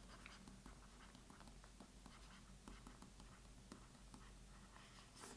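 Faint scratching and small irregular ticks of a stylus writing on an e-ink tablet's screen, with a brief slightly louder rustle near the end.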